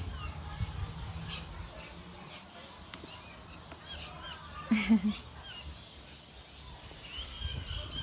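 Small birds chirping and twittering in the background, short high calls scattered throughout. A brief low voice sound about five seconds in is the loudest moment.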